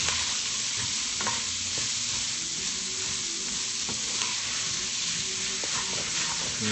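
Chopped onions, celery and peppers sizzling in a hot Dutch oven as they are stirred, with a few light clicks of the spoon against the pot.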